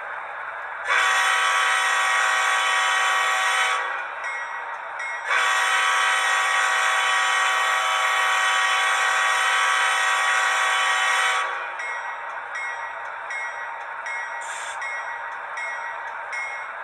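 Model diesel locomotive's sound decoder sounding a multi-chime air horn through its small speaker: a blast of about three seconds, then a longer one of about six seconds. Faint short regular sounds, about two a second, come between and after the blasts.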